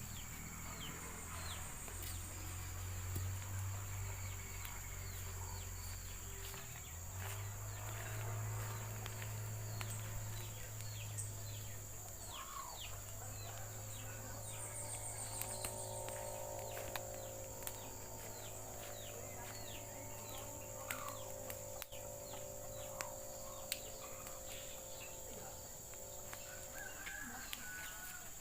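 Outdoor rural ambience: a steady high-pitched insect drone, with short falling bird chirps repeating about twice a second, over a low rumble.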